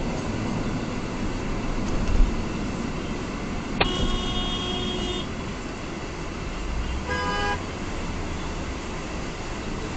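A vehicle horn honks twice over steady road noise inside a moving car: a held honk of about a second near four seconds in, and a shorter one around seven seconds.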